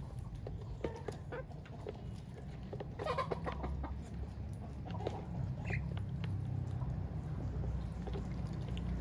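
Chickens clucking, short calls scattered throughout with a brief flurry about three seconds in, over a steady low rumble.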